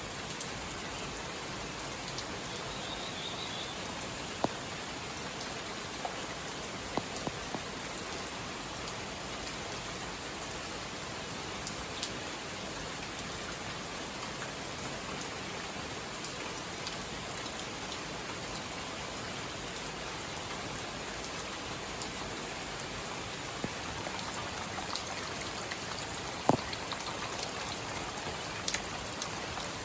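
Steady rain falling, an even hiss with a few scattered louder single drops striking, the strongest one near the end.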